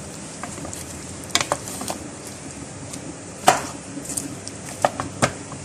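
Wooden spoon stirring chicken pieces in tomato paste in a metal karahi, with scattered knocks and scrapes against the pot, the loudest about three and a half seconds in, over a steady sizzle of cooking.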